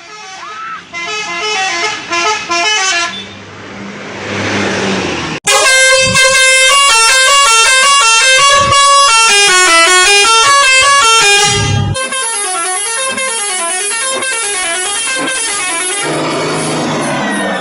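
Indonesian bus 'telolet' multi-tone horn playing quick up-and-down melodic runs. It gets much louder about five seconds in, changes tune near twelve seconds, and has a low steady hum beneath the quieter opening and closing parts.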